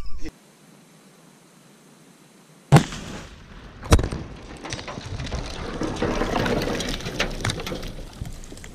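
A Tannerite binary explosive, about 12 lb, detonating at close range to the camera. There are two sharp bangs about a second apart, then a long rushing, crackling noise that swells and slowly fades.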